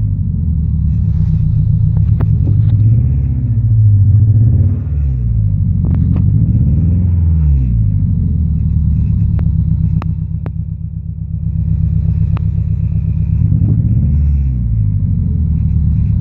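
Car engine running with a pulsing, uneven note, its pitch rising and falling several times as it is revved and let back down, with a few sharp ticks. The owner suspects a misfire, the engine running on three cylinders.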